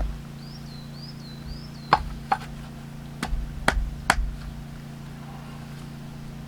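Heavy chopping blows on larch firewood, about six uneven sharp strikes in the first four seconds, from hand-splitting a tough softwood round.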